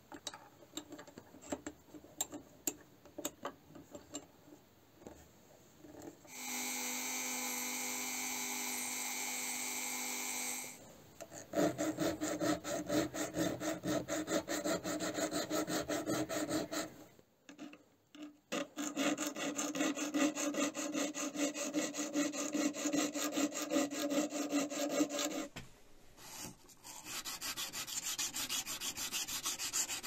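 A hand file rasping across a knife blade clamped in a vise, in rapid back-and-forth strokes with a short break in the middle. Before the filing come a few light clicks of handling and a steady, even whir lasting about four seconds. Near the end the sound turns to finer, higher rubbing as the blade is sanded with a sanding stick.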